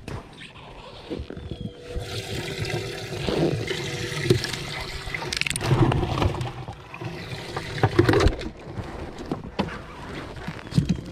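Water splashing and gurgling in a bass boat's livewell as fish are lifted out of it, in uneven surges over a faint steady hum.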